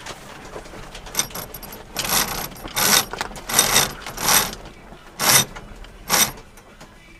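A sailboat's jib sheet being hauled in around a ratcheting winch just after a tack: about seven short rasping ratchet runs in quick pulls, from about a second in until near the end.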